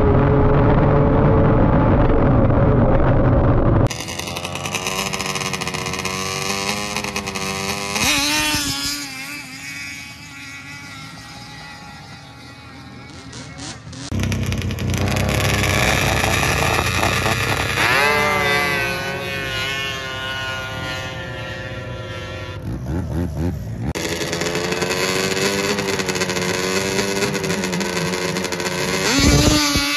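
Snowmobile engines in a drag race, in a series of short clips: the loudest is close up on a racing sled, and several times a sled launches with its engine pitch climbing sharply as it accelerates away.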